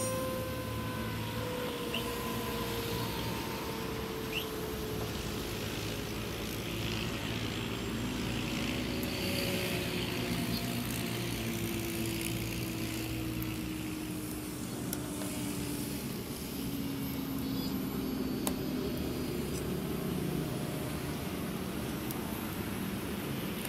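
CNC router spindle motor whining over a steady machine hum, the whine sliding slowly and evenly down in pitch. A few faint clicks.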